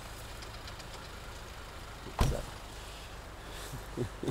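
Pickup truck engine running low and steady as the truck pulls away towing a trailer, with a single sharp knock about two seconds in.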